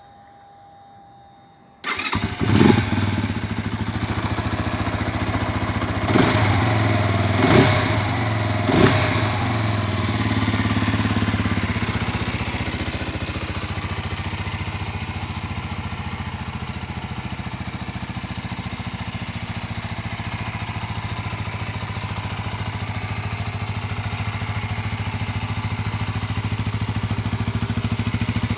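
Keeway RKF motorcycle's single-cylinder engine starting about two seconds in, blipped up and down four times, then settling to a steady idle.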